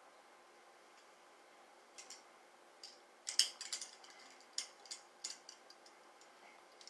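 Metal jewelry clinking in a scatter of light, sharp clicks, starting about two seconds in, as hands work cream through long locs.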